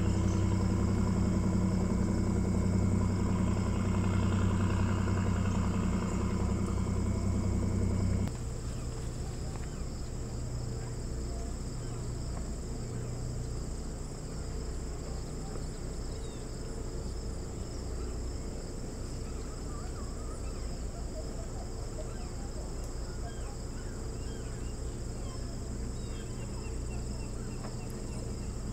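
An engine runs with a steady low hum, then cuts off suddenly about eight seconds in. That leaves a steady high-pitched drone of insects in the background.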